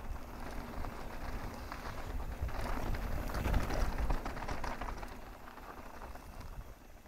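Mountain bike rolling fast over a rocky dirt trail: tyres crunching over gravel and rock, with rattling and many small clicks and a low wind rumble on the microphone, loudest about three to four seconds in and easing off near the end.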